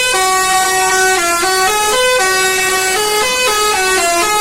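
A bus's 'telolet' horn, a multi-note musical air horn, playing a quick tune of stepped notes with no break.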